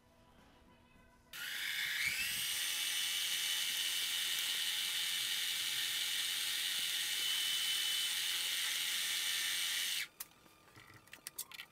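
A mini-lathe's motor switched on about a second in, its whine rising as it spins up, then running steadily while abrasive paper is held against the spinning steel piece to polish it. It shuts off near the end, followed by a few light clicks.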